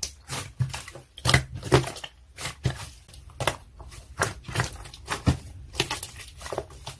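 Slime being squished and pressed by hand, giving irregular sticky clicks and crackles, a few each second.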